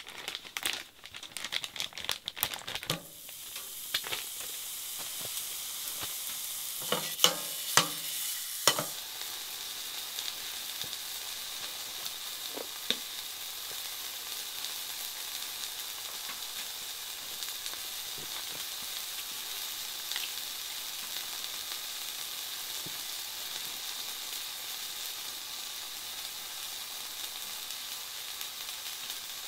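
Plastic zip bag crinkling briefly. Then a hamburger patty sizzles steadily in a frying pan on a wood stove, with a few sharp knocks about seven to nine seconds in.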